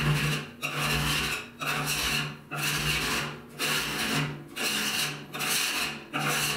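Flat scraper blade scraping wrinkled, lifting paint off the steel lid of a 55-gallon drum, in rasping strokes about one a second.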